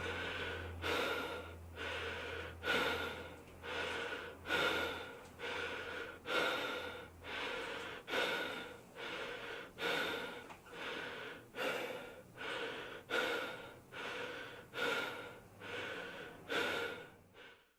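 A person breathing heavily: breaths in and out in a steady rhythm, a little more than one a second, stopping near the end.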